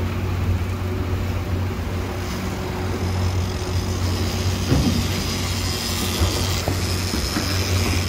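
A boat's engine running steadily while the boat is underway, a constant low hum over the rush of water along the hull. A faint high steady whine joins about two seconds in.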